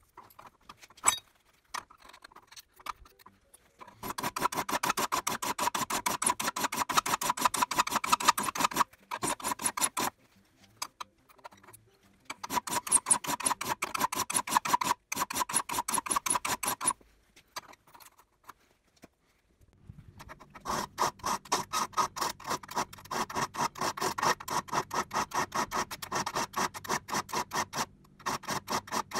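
Flat file being run lengthwise along the tooth tips of a crosscut logging saw, jointing the teeth to an even height: three long passes of rapid, rhythmic scraping with a ringing note underneath, separated by short pauses.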